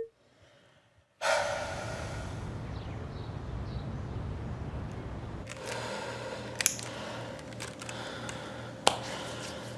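Steady city background noise, a hush with low traffic-like rumble, which comes in about a second in. About halfway through it gives way to quieter indoor room tone with a steady low hum and two sharp clicks.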